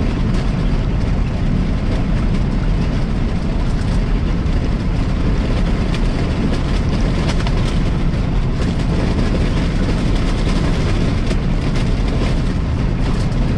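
Peterbilt 389 semi truck cruising at highway speed, heard inside the cab: a steady drone of engine and road noise.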